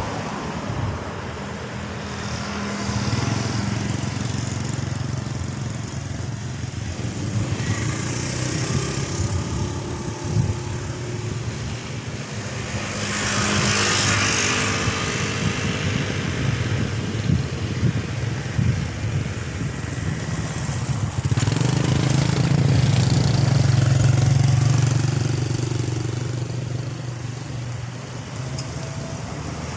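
Road traffic going by: cars and motorcycles passing one after another, with a steady engine rumble that swells as each one passes, the loudest about three-quarters of the way through.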